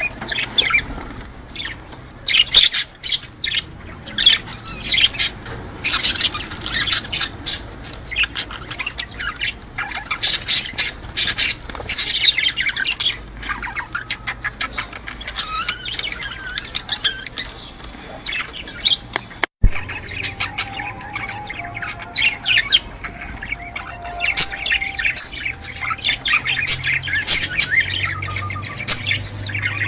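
Many small cage birds chirping, chattering and squawking together in a dense, continuous chorus, the kind of recording played to birds to stimulate mating and breeding. It breaks off for an instant about twenty seconds in.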